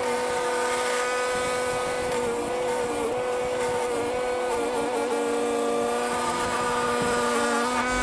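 A machine running steadily at constant speed: an even mechanical whine with one strong pitched tone and fainter overtones over a hiss.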